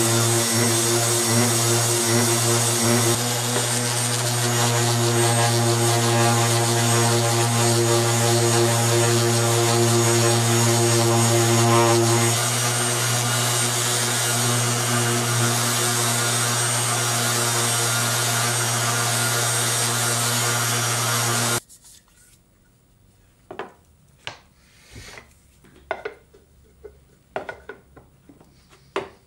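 Random orbital sander running steadily while sanding a cedar box, a loud even whir with a low motor hum. It stops abruptly about two thirds of the way through, leaving a few faint taps and knocks as the box is handled.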